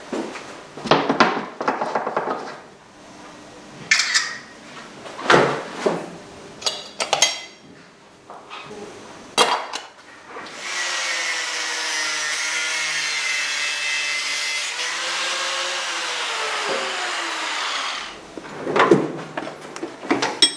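Metal tools and parts clattering and knocking as they are handled, then a power tool runs steadily for about seven seconds, its pitch dipping and rising again near the end of the run, followed by more clatter.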